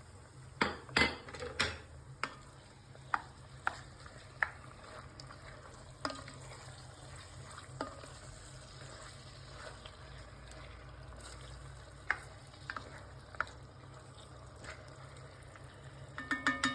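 A metal spoon stirring food in a pot and knocking against its side, with sharp knocks scattered through and a quick run of ringing clinks near the end. Faint frying of food in oil underneath.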